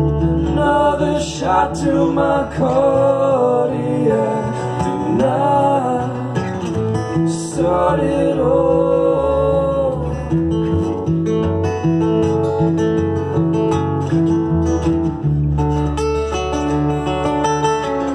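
Two acoustic guitars playing a song together, with a singing voice over them for roughly the first ten seconds. The last part is the guitars alone.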